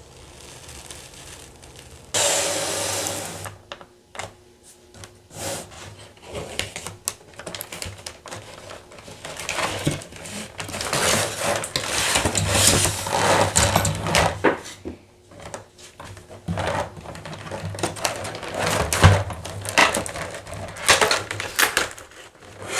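Handling noises from unboxing a toy set: irregular clicking, knocking and rustling of packaging and plastic pieces, with a longer rustling burst about two seconds in.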